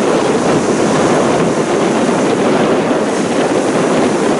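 Steady rushing noise of surf washing up the beach, mixed with wind noise on the microphone.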